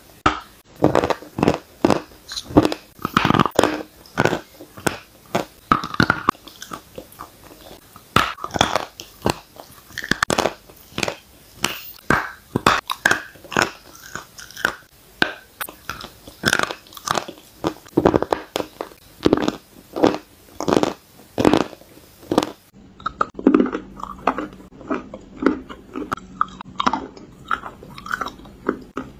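Person biting and chewing chunks of chalk, a long run of sharp, crisp crunches about one to two a second. Near the end the crunches turn duller, over a faint steady hum.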